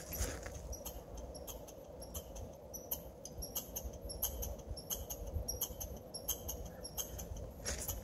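Squirrel on a tree trunk making irregular short, high-pitched clicks, several a second.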